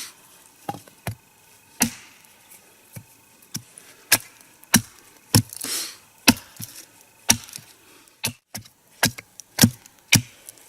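A wooden wedge being hammered into the crack of a log to split it: sharp woody knocks, roughly two a second and unevenly spaced.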